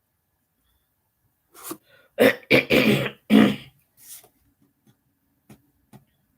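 A woman coughing and clearing her throat: a run of about four loud coughs starting about two seconds in, then a softer one, the morning choking-up she speaks of.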